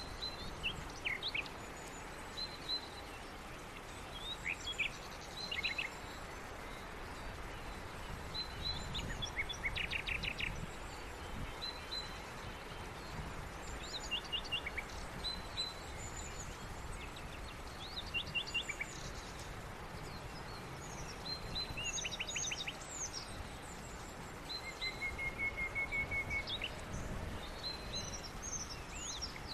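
Birds chirping and trilling: many short, overlapping calls scattered throughout, with a fast run of even notes near the end, over a steady background hiss and low rumble.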